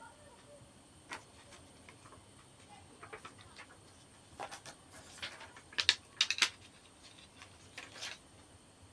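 Scattered light clicks and taps of a phone and its plastic screen protector being handled and pressed into place, with a cluster of sharper taps around six seconds in.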